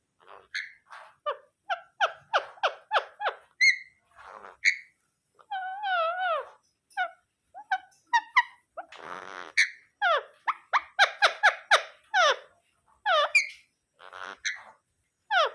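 Pet parrot chirping and squeaking in quick series of short notes, with a couple of longer wavering calls and a brief hiss about nine seconds in; the owner says the bird is sleepy.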